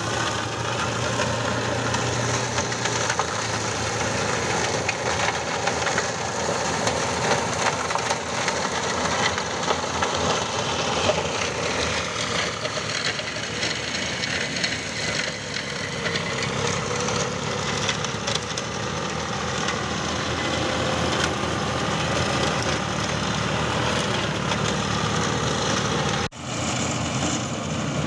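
A John Deere tractor's engine running under load while its rear-mounted flail shredder chops piled olive pruning branches: a dense, steady clatter shot through with crackling knocks of wood being smashed. It drops out for a moment near the end.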